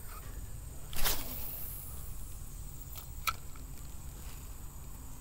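Handling noise from working a spinning rod and reel: a brief swish about a second in as the rod is jerked, then two light clicks a few seconds in, over a faint steady outdoor background.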